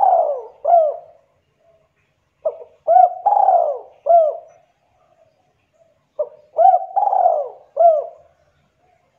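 A dove cooing in repeated phrases about every three and a half seconds. Each phrase is a few short arched coos around one longer coo.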